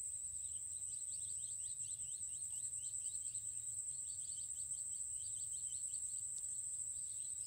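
Insect chorus in marsh grass: a steady high-pitched drone like crickets, with rapid short chirping notes repeating several times a second.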